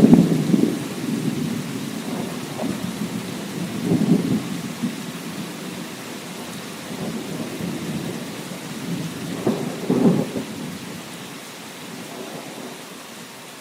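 Thunder rumbling over steady rain: a loud peal right at the start, further swells of rumble about four and ten seconds in, dying away toward the end while the rain hiss goes on.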